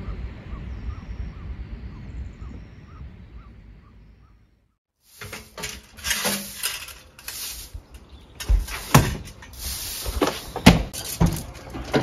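A steady low outdoor rumble with faint regular ticks fades out about four seconds in. After a short silence comes a run of knocks and clunks from the door of a camper box on a kei truck being handled, the loudest near the end.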